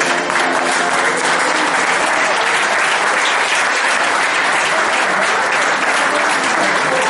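Crowd applauding, a dense, steady clapping; the last of the dance music dies away in the first second.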